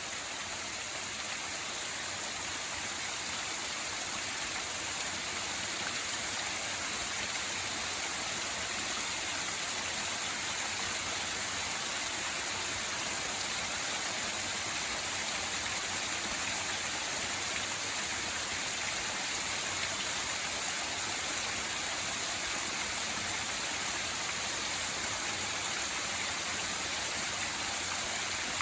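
Small woodland waterfall running full with flood water: a steady, even rush of falling water.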